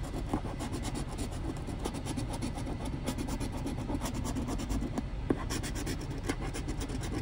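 A coin scratching the coating off a scratch-off lottery ticket in rapid short strokes, several strokes a second, over a low steady rumble.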